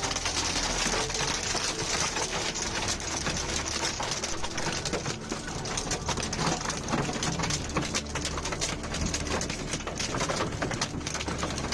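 Small hailstones pelting down in a dense, continuous clatter of countless tiny impacts, striking the car, over a steady low rumble.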